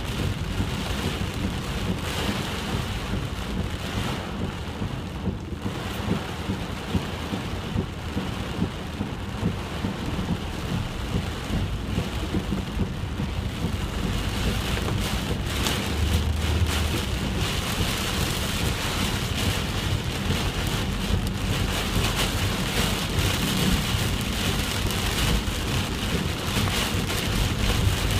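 Heavy typhoon rain pouring steadily, a dense hiss of drops with a constant low rumble beneath it that swells briefly about halfway through.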